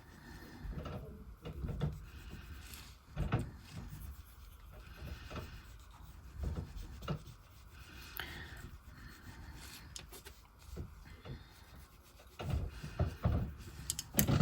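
Soft rubbing of a fingertip working chrome powder onto cured gel nails, with scattered light taps and clicks.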